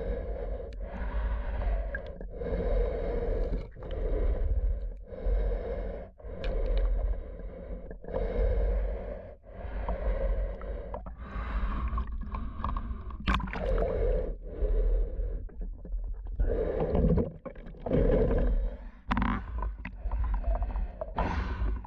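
A snorkeler breathing steadily in and out through a Free Breath full-face snorkel mask, heard underwater as a muffled whoosh about once a second. In the second half the rhythm gets less even, with a few sharp clicks and knocks.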